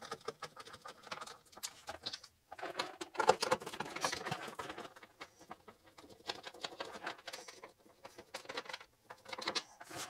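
Screwdriver backing out the screws of an old motorcycle taillight lens: faint, irregular small clicks and scrapes of metal on plastic, busiest a few seconds in.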